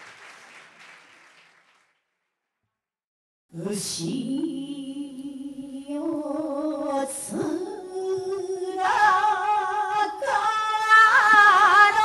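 Applause fades out into a moment of silence, then an unaccompanied voice starts singing about three and a half seconds in: long held notes with wavering ornaments, climbing higher and getting louder toward the end.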